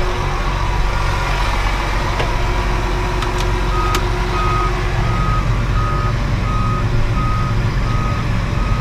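A vehicle's backup alarm beeping steadily, about one and a half to two beeps a second, starting about four seconds in as it reverses, over the steady running of an engine.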